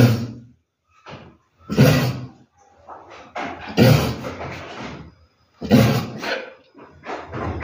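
Pregnant ewe coughing over and over, harsh choking-like hacks roughly every two seconds. The owner first wondered whether she was choking and now takes it for a cough.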